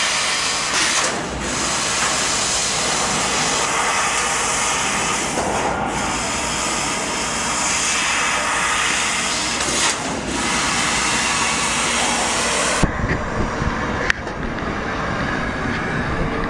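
CNC laser cutting machine cutting sheet steel: a loud, steady hiss from the cutting head as it throws sparks. The hiss cuts off suddenly about 13 seconds in, leaving a low rumble and one sharp click.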